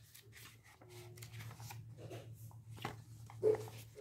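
Paper rustling as an instruction booklet is handled, in a series of short light rustles, over a low steady hum.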